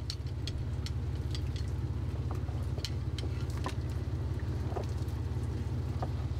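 Fishing boat's engine running steadily with a low drone, under scattered light metallic clicks from the net's stainless-steel closing rings being handled on their cable.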